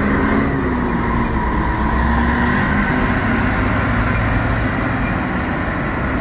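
Wheel loader's diesel engine running while its bucket pushes a mass of hail and slush along the road, under a steady rushing noise.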